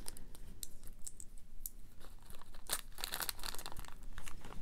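Small zip-top plastic bag being handled and pulled open, its thin plastic crinkling with scattered crackles and clicks.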